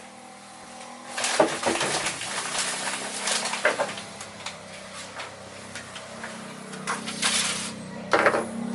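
Irregular rustling and crinkling with sharp clicks and knocks, typical of packaging being handled. It starts about a second in.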